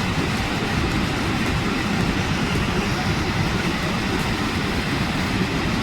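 Steady roar of a large waterfall: an even, unbroken rush with a deep rumble underneath.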